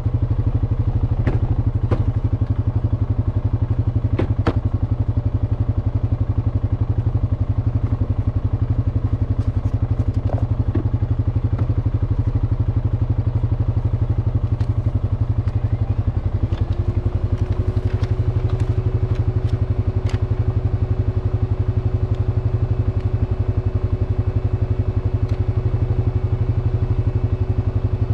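Honda FourTrax Foreman ATV engine idling steadily while the machine stands still, with a few light paper crinkles and clicks from a trail map being unfolded. A steady higher hum joins a little past halfway.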